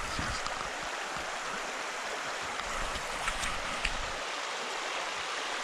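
Steady rushing of a shallow river running over a gravel bed, with a few faint clicks a little past halfway.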